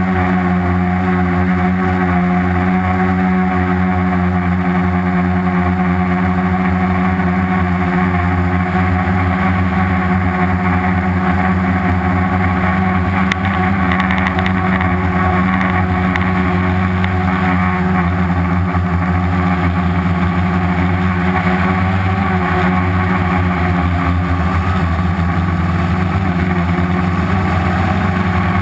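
The four Turnigy 2217 1050kv brushless outrunner motors of a homemade quadcopter, spinning 10x4.5 slow-fly propellers in flight. They make a loud, steady hum of several pitches that waver slightly, heard from the GoPro mounted on the craft.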